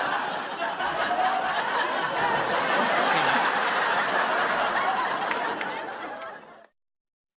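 Cast and studio audience laughing, fading out and stopping after about six and a half seconds.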